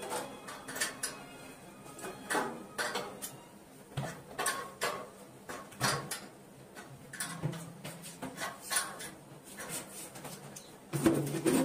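Metal hand tool clinking and scraping against the fittings of a wall-mounted gas geyser while its mounting screws are tightened, in a run of irregular sharp clicks, with a louder burst near the end.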